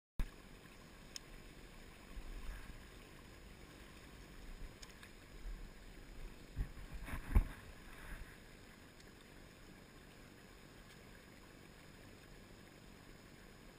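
Faint steady hiss of a river and open air picked up by a GoPro camera. Several low bumps and knocks come in the middle, the loudest about seven and a half seconds in, typical of the camera or rod being jostled.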